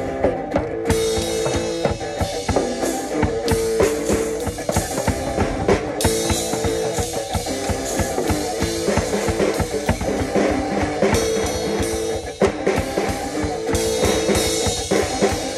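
An acoustic guitar and a drum kit playing an instrumental passage together: a steady drum beat with bass drum and cymbals under the guitar.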